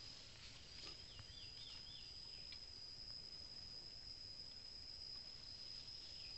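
Faint forest ambience: an insect's steady high-pitched drone, with a short rapidly wavering bird call about a second in and a few faint snaps.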